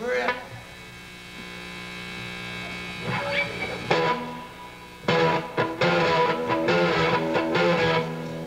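Live rock band on stage: an electric guitar chord is struck and left ringing over steady amplifier mains hum, with a few more notes around three and four seconds in. About five seconds in the full band comes in loud, with drums and distorted guitar.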